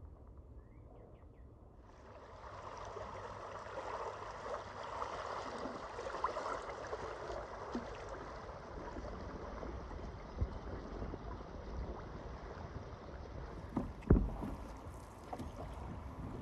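Shallow river water rushing and splashing around a moving canoe, faint at first and coming up about two seconds in, with a few sharp knocks, the loudest about 14 seconds in.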